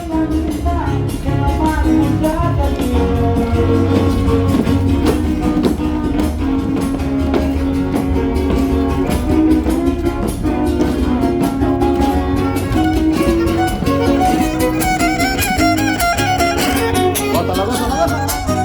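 Trío huasteco playing an instrumental huapango break: a violin carries the melody over strummed jarana huasteca and huapanguera.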